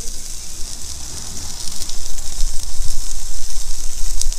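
Barbecue steaks sizzling on an electric griddle, a steady frying hiss, with a low rumble underneath that grows louder about two seconds in.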